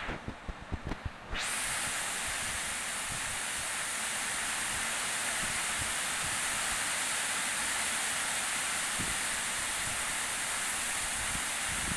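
Heavy rain falling, a steady hiss; in the first second and a half it briefly drops away and a few soft low knocks are heard.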